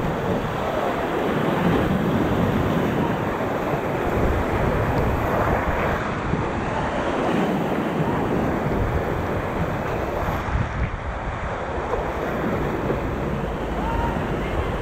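Whitewater rapids rushing steadily around an inflatable raft running the rapid.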